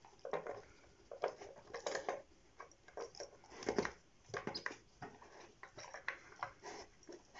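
Dog nosing and pawing at the blue plastic pieces of a plastic 'Dog Activity' puzzle feeder board: irregular short clicks and knocks of plastic, the loudest a little past the middle.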